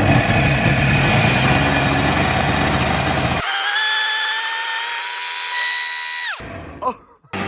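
Jet ski engine running out of the water at high revs. After about three seconds the sound changes suddenly to a high, steady whine that creeps slightly up in pitch. Near the end the whine drops away sharply, followed by a brief silence.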